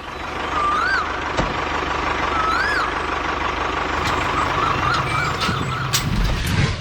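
Vehicle engine running steadily, with a steady whistling tone and several rising-and-falling warbles over it. The sound cuts off abruptly near the end.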